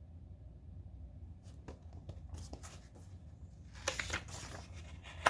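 Paper rustling and soft clicks as a picture-book page is handled and turned, loudest about four seconds in, with a sharp click near the end, over a steady low hum.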